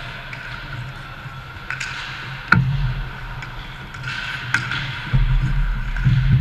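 Ice hockey play around the goal: sharp clacks of sticks and puck, the loudest about two and a half seconds in and another about two seconds later, over a steady rink noise whose low rumble grows louder near the end.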